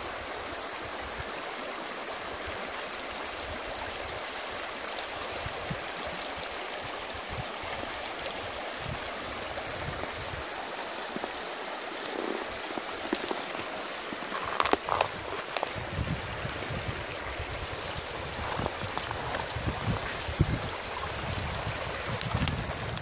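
Shallow stream flowing over pebbles, a steady babbling rush of water. Near the middle there are a few brief louder gurgles, and some low rumble joins in over the last few seconds.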